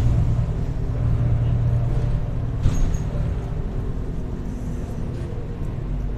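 Irisbus Agora S city bus's diesel engine running under way, heard from inside the passenger cabin as a loud low drone that eases off gradually in the second half. A single sharp knock about two and a half seconds in.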